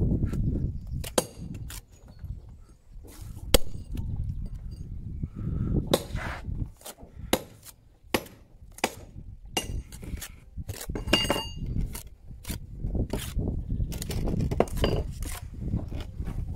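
Steel trowel scraping and tapping mortar against stone blocks as random stone walling is laid, with irregular sharp clinks and knocks of stone and steel over a low rumble.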